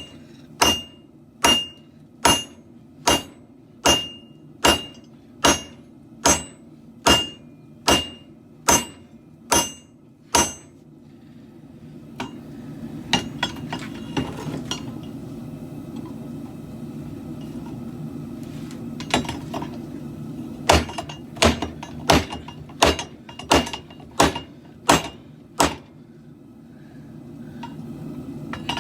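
Hammer blows on a katana blade being forged, each strike ringing: an even run of about fourteen blows, a little more than one a second, then a few lighter taps, then a quicker run of about a dozen blows. A steady low rumble runs underneath.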